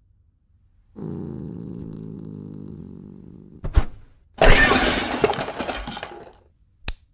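A thump, then a long crash of dishes and kitchenware breaking and clattering as a leaping cat lands among them on the counter, dying away over about two seconds. It is preceded by a low steady sound for a couple of seconds and followed by a single short click.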